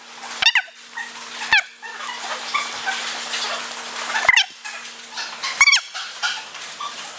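Dogs whimpering and yelping in an indoor training hall, with four short, sharp high squeaks standing out, over a steady low hum.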